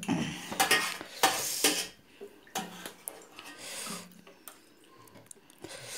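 Spoons clinking and scraping on steel plates as people eat, with several sharp clinks in the first two seconds, then quieter, scattered scrapes.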